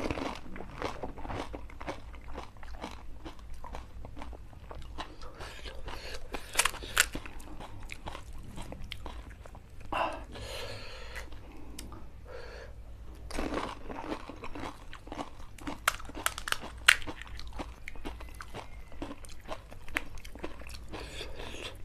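Close-miked crunching and chewing of pani puri (golgappa): crisp fried shells crack as they are broken open by thumb and bitten, with chewing between, and a few cracks are much sharper than the rest.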